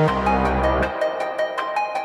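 Electronic background music with a fast, steady beat; a deep bass note sounds for about the first second, then drops out.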